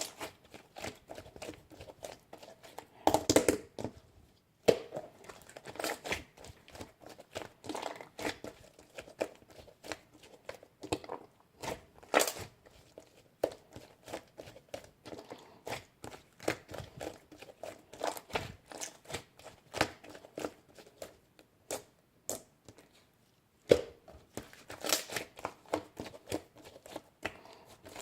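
Irregular crinkling, crackling and tearing handling sounds, made of many short clicks, with louder clusters about three seconds in, around twelve seconds and near the end.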